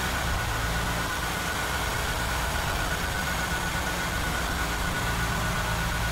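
Car engine running in gear through a freshly rebuilt A8LF2 eight-speed automatic, driving the raised front wheel so it spins freely: a steady whir and hum with a thin high whine over it, heard during a test drive of the rebuilt gearbox.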